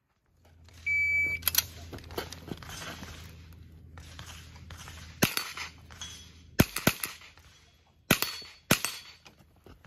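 A shot timer's start beep, about a second long, sounds about a second in. A .22 rimfire rifle then fires a string of shots at uneven intervals, with a quick cluster of three near the middle and two more near the end.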